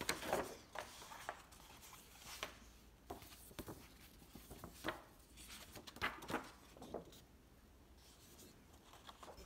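Folded paper trifold charts being unfolded and handled: irregular rustling and sliding of the sheets, quieter after about seven seconds.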